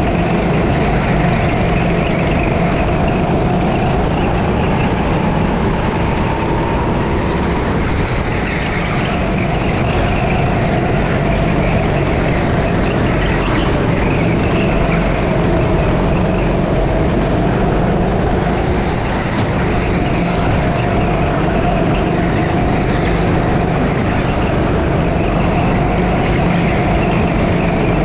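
A 6.5 hp go-kart engine running hard at racing speed, heard from on board. Its pitch rises and falls gently as the throttle is worked through the corners, over a steady rumble.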